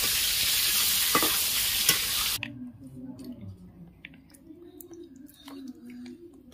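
Fish frying in hot oil in an iron kadai, a steady loud sizzle that cuts off suddenly about two seconds in. After it, a few faint clicks of a spoon against a steel bowl of soaked rice as curd is spooned on.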